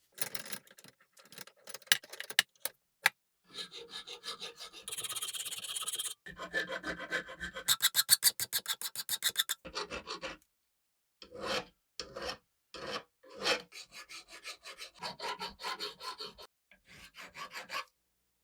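Repeated back-and-forth rasping strokes of hand abrasive work, rubbing at a rusty tool or its handle. The strokes come in several short runs, each cut off suddenly by a moment of silence.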